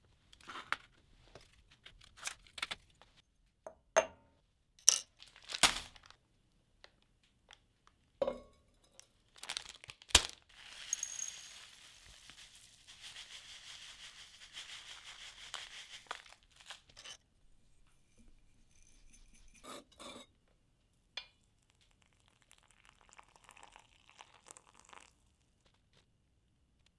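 Sharp clicks and knocks of a mate cup and a paper bag being handled, then about five seconds of dry rustling hiss as loose yerba mate is poured from the bag into the cup, followed by a few lighter clinks and rustles.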